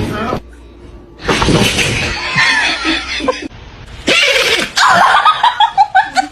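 A pet sneezing in harsh, explosive fits, followed near the end by a quick run of laughter.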